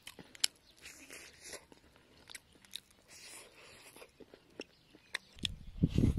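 Crispy battered fried fish crunching between the teeth as it is bitten and chewed, in scattered faint crackles. Near the end a much louder low rumble sets in.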